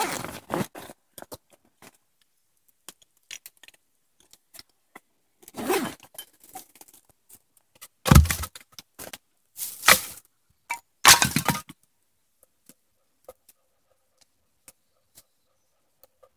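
Camping gear being handled: bursts of rustling, clinking and knocking, loudest as a heavy thud about eight seconds in and two sharp clatters soon after, then quiet with faint scattered ticks.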